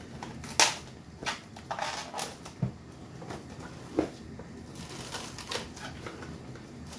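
Cling film crinkling and a plastic mixing bowl being handled: scattered sharp clicks and crackles, the sharpest about half a second in.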